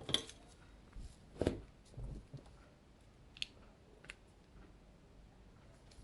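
Faint, scattered clicks and taps of small smartphone parts and a tool being handled during disassembly, with a few soft knocks.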